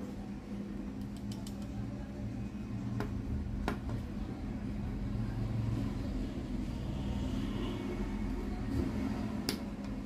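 Small sharp clicks and ticks of the parts of a demolition hammer's trigger switch being pressed by hand into its housing, a few separate clicks with the clearest near the middle and near the end, over a steady low hum in the background.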